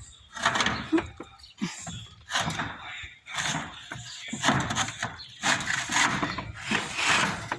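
Roof tiles being handled and set in place: a run of irregular scrapes and knocks.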